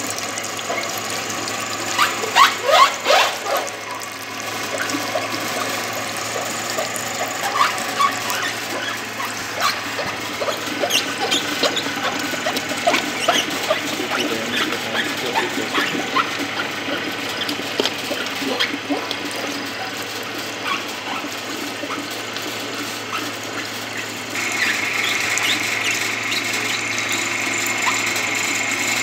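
Small electric oil expeller running as it presses dried coconut (copra): a steady motor hum with irregular clicks and cracks from the pieces being crushed, a burst of louder ones a couple of seconds in. A steady high whine joins in near the end.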